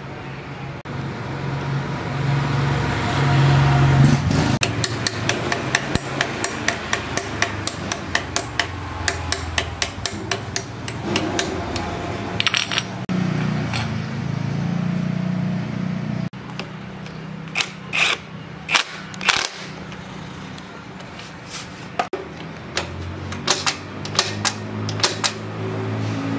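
Hammer tapping on steel: a long run of quick, even taps, about four a second, then a few scattered harder strikes later, over a steady low hum.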